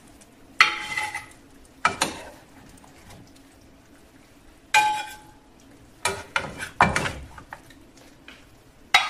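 A wooden spatula and a fork scraping in a frying pan and clinking against a serving plate as pieces of braised meat are lifted across. It comes as five or six separate short clatters a second or two apart.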